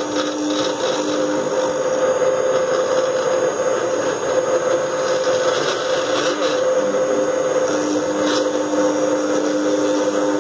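Small CNC router carving wood with a 1 mm ball-nose end mill: the spindle motor runs with a steady whine over the noise of the bit cutting. A lower tone from the axis drive motors comes and goes as the carriage moves.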